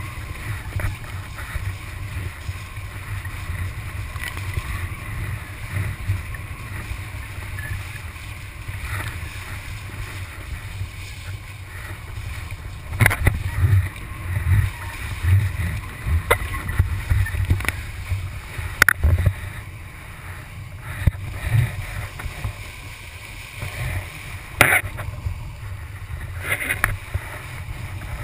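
Wind buffeting the microphone and water rushing past a kiteboard skimming over the sea, with a steady low rumble. From about halfway through, several sharp slaps cut in as the board or spray hits the chop.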